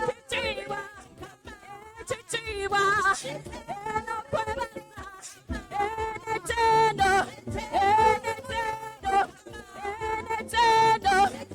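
Gospel praise-and-worship singing: drawn-out sung phrases, some held notes wavering, with short breaks between lines.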